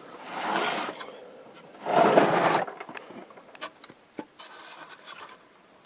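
Handling noise from the metal chassis of a tube television as the high-voltage box is pushed and tugged: two scraping, rubbing bursts in the first three seconds, the second the louder, then faint rustling and a few light clicks.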